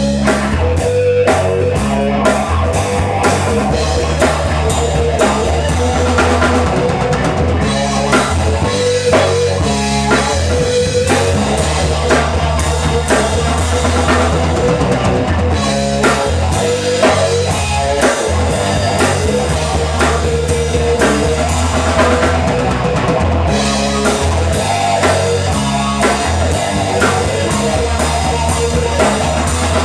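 Live rock band playing an instrumental jam: a drum kit keeping a steady beat under electric guitar and a moving bass line.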